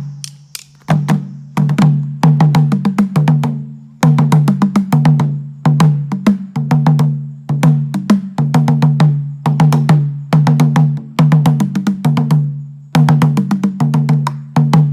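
Namunjjoloba, a Buganda drum, played in quick runs of sharp strokes grouped into short repeating phrases with brief breaks between them. Each stroke rings with a clear pitch.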